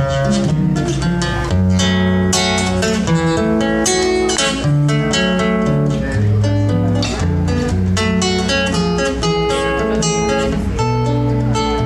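Acoustic guitar playing a strummed and plucked introduction with a steady bass line, before the singing comes in.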